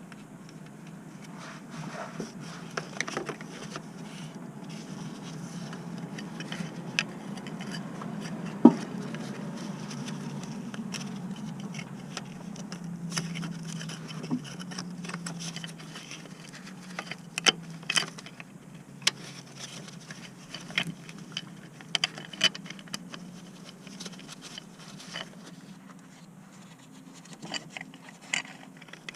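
Scattered sharp clicks, knocks and scrapes of tools and parts being handled, over a steady low hum. The sharpest knock comes about nine seconds in, and a run of clicks follows in the second half.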